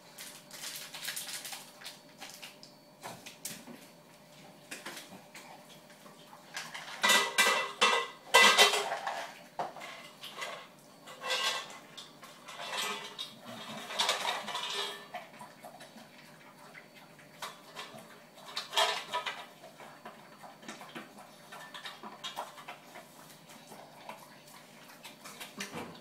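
Metal dog bowl clattering and ringing as an English bulldog eats from it while a person holds and handles the bowl. Irregular clinks come in bursts, loudest about seven to nine seconds in and again around fourteen seconds.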